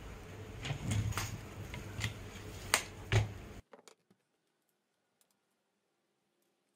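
Sharp clicks and taps of a tape measure and metal tubing being handled while measuring and marking, the loudest two near the end. The sound cuts off suddenly about three and a half seconds in.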